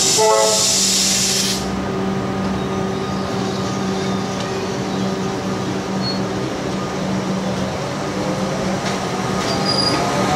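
Comeng electric train moving off along the platform. A loud hiss stops about a second and a half in, a steady hum and the sound of the wheels carry on, and a motor whine rises in pitch near the end as the train gathers speed.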